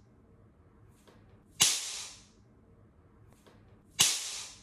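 Two sharp hand slaps about two and a half seconds apart, each fading out over about half a second in a small bathroom: a hand swatting at a bug.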